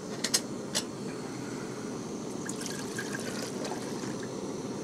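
Water trickling and pouring from a glass measuring cup, with a few light clicks of the cup being handled about a second in. Under it runs the steady hiss of a lit Snow Peak GigaPower 2 canister stove burning.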